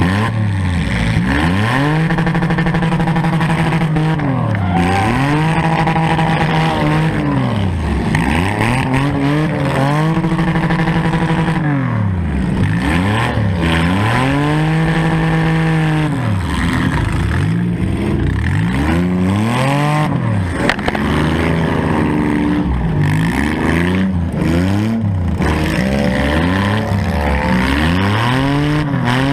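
Four-cylinder demolition derby car engine revved up and down again and again, about every two seconds. Each rev climbs, holds briefly at the top and drops back.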